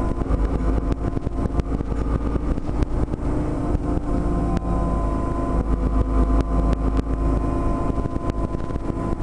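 Mercedes-Benz Citaro city bus under way, heard from inside at the back of the cabin near its rear-mounted diesel engine: a steady engine drone and low rumble, with frequent small rattles and knocks from the bus body and fittings.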